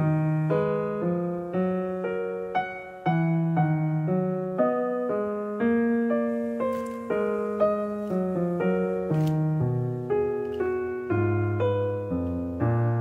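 Background piano music: a gentle, unhurried melody of single notes and chords, each note struck and fading.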